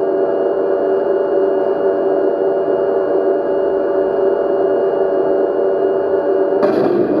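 RC tank electronic sound unit playing a sampled tank engine sound through its small speaker: a steady, droning hum. Near the end it switches abruptly to a louder, harsher noise.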